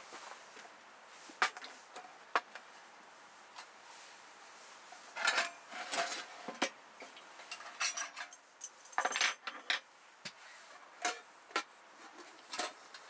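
Metal cookware and utensils being handled: irregular light clicks, knocks and clinks, busiest around the middle, some with a short metallic ring.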